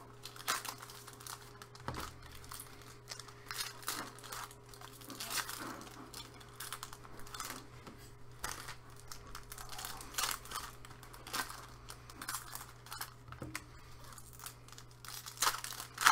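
Trading cards and their packaging being handled, with irregular crinkling and rustling over a faint steady hum.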